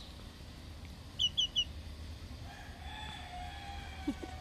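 A rooster crowing: one long, drawn-out call that starts just past halfway through, after three quick high chirps about a second in.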